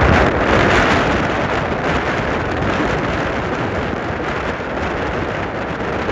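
Strong gusting wind buffeting the microphone: a loud, continuous rumbling rush, strongest in the first second or so and easing slightly after.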